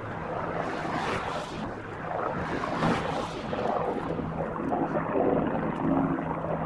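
Distant Bell 412 helicopter in flight, a steady low drone from its rotor and turbines, with gusts of wind buffeting the microphone.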